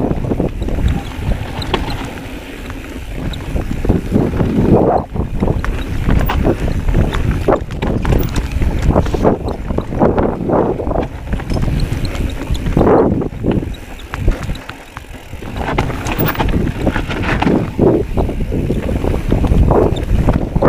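Wind buffeting the microphone over the rolling noise of a mountain bike's tyres on a dry dirt trail, with frequent rattles and knocks from the bike over rough ground. The noise eases off twice, briefly, as the bike slows.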